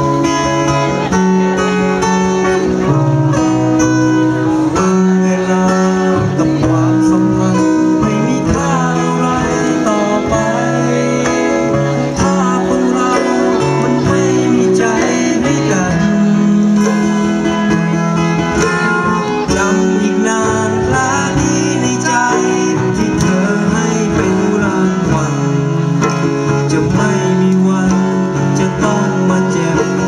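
A live band playing a ballad, with acoustic guitars to the fore and chords changing every second or two.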